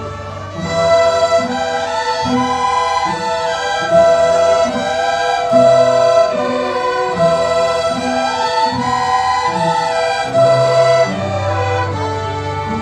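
A student string orchestra playing live: violins carry a melody of held and sliding notes over short, repeated low string notes.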